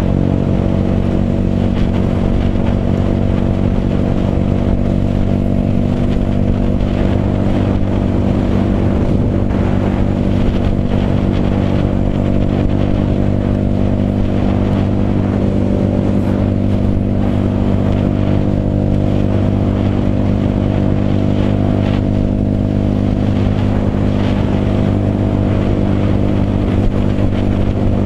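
Motorcycle engine running at a steady cruising speed, heard from the rider's own bike, its pitch holding nearly constant, over a steady rush of wind and road noise.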